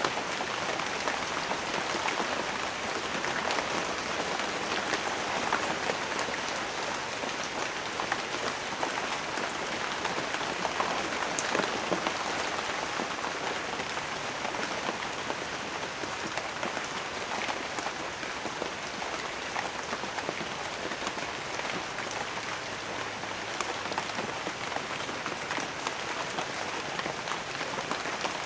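Steady rain with raindrops pattering on a surface, a dense even hiss dotted with many small drop ticks.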